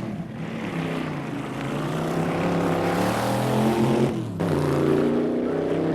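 Hot-rod street roadster's engine running hard under full throttle down a drag strip, growing louder. About four seconds in the note briefly drops away, then the engine pulls again.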